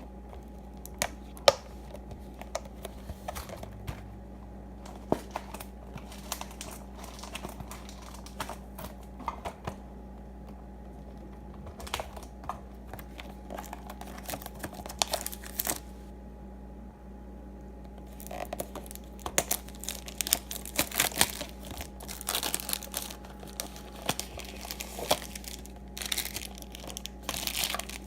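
Plastic shrink-wrap crinkling and tearing as a sealed baseball card box is unwrapped, with scattered clicks and taps of cardboard being handled. The crinkling is thickest in the last ten seconds.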